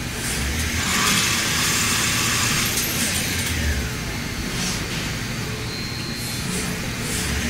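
CNC turning centre machining a metal workpiece: a steady low spindle hum under a hiss of cutting that swells about a second in and eases off after about three seconds, with a falling whine near the middle.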